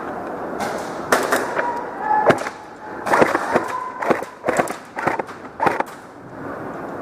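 Airsoft guns firing a scatter of single shots, about a dozen sharp cracks at irregular intervals, with BBs smacking into surfaces in an indoor arena.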